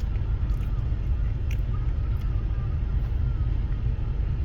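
A steady low rumble, with a few faint short clicks scattered through it.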